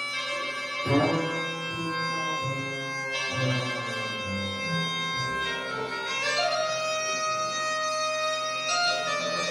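Live folk music: a bagpipe plays a reedy melody over a steady drone, a large bass drum is struck hard about a second in, and a double bass plays low notes beneath.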